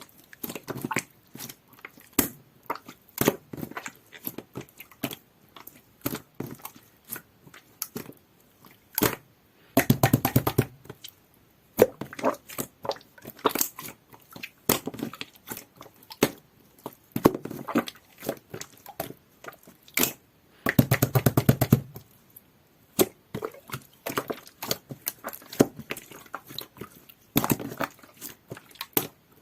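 Slime being squished and poked by hand, with irregular sticky clicks and pops. Twice, about a third and about two thirds of the way through, it breaks into a second-long burst of rapid crackling.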